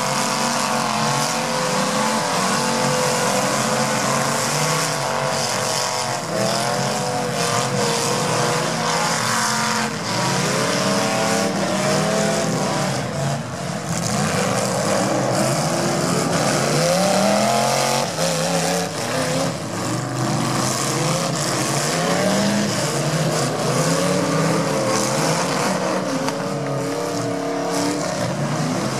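Demolition derby cars' engines running and revving in a mud pit. Several engines are heard at once, their pitch climbing and falling over and over as they accelerate and back off.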